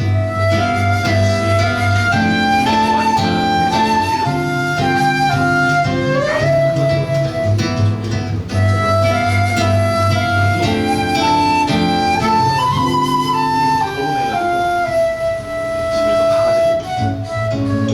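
Flute and seven-string guitar duo playing a waltz: the flute carries a stepping melody over the guitar's bass notes and chords, holding one long note near the end.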